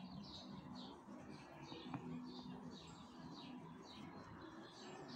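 Faint bird chirps repeating a few times a second over a low hum that comes and goes, with one small sharp click about two seconds in.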